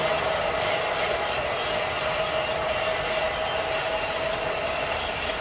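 Toy electric train sets running on plastic track: small motors give a steady whine over a constant rushing noise from wheels and gears.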